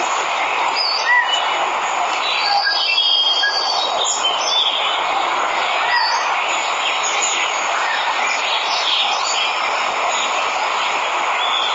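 A waterfall's steady rushing water, with birds chirping and whistling over it.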